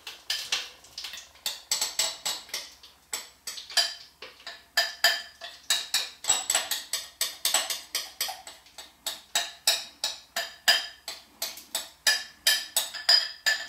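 A metal spoon scraping and knocking around the inside of a glass bowl to get out the last of a batter, a quick run of short ringing clinks about three a second.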